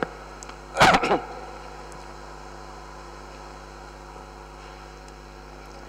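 One short word from a man about a second in, then only a steady electrical hum with no other sound.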